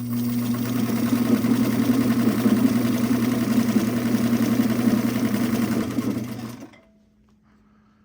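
White 658 sewing machine's electric motor running and sewing a straight stitch: a steady hum under a fast, even clatter of the needle mechanism. It speeds up and gets louder about a second in, then stops abruptly near the end.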